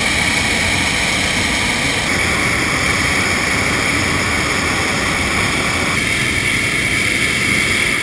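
Hot-air balloon's twin propane burners firing in one long continuous blast, a loud steady rushing noise, heating the envelope for lift-off.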